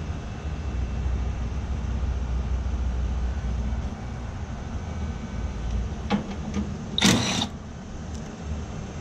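Steady low hum of running air-conditioner condensing units, heavier for the first four seconds. A few light clicks follow around six seconds in, then a short loud rasp of handling noise about seven seconds in.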